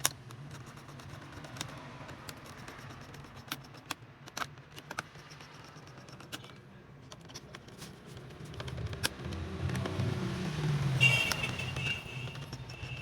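Scattered light clicks and taps of small parts being handled, over a low steady hum, growing busier and louder for a few seconds near the end with a short high tone.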